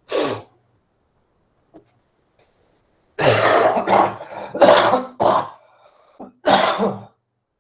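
A person coughing: one cough, then a fit of about five coughs starting about three seconds in.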